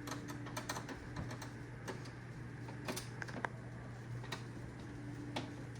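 Irregular light clicks and taps of a screwdriver and small plastic Roomba parts being handled while screws are taken out, with a few sharper clicks near the middle and the end. A steady low hum runs underneath.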